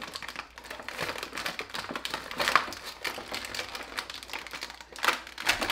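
Clear plastic toy packaging crinkling in quick, crisp crackles as hands work small accessory pieces out of it, with louder bursts about halfway through and near the end.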